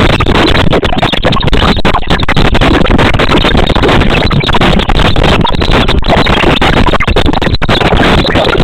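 Loud, dense background music that runs without a break.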